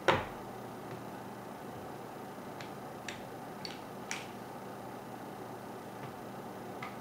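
Hands handling a Tippmann 98 paintball gun during disassembly: a sharp knock right at the start, then a few light clicks of the parts being moved. A steady low hum runs underneath.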